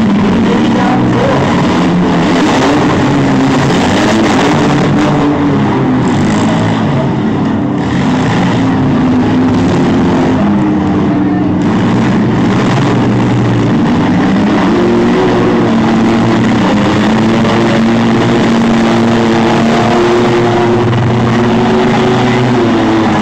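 Several demolition derby mini-vans, trucks and SUVs with their engines running and revving at once: a loud, continuous mix of engine tones that rise and fall.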